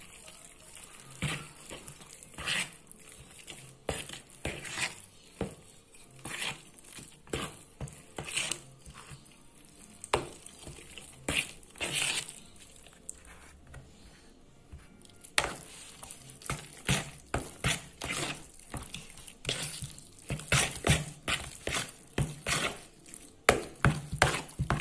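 Metal spoon stirring a thick ricotta, spinach and béchamel filling in a plastic bowl, scraping and squelching stroke by stroke. The strokes come about one a second at first, then quicker and louder near the end.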